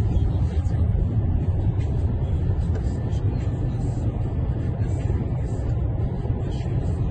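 Steady low rumble of a column of tracked armoured military vehicles driving past, heard from inside a car.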